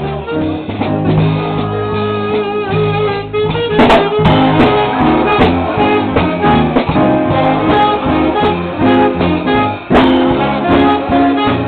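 A live band playing, with a plucked guitar out in front and a few sharp hits about four seconds in and again near the end.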